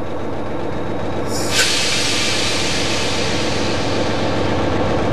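Cab noise of an Amtrak P40-8 diesel locomotive under way: the steady running of its V16 diesel engine and the rumble of the train on the rails. About a second in, a sudden loud hiss starts and slowly fades.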